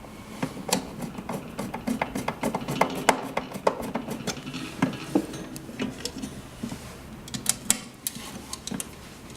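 Screwdriver driving one of the cover screws back into a 3D sublimation heat press: a run of small, irregular clicks, several a second.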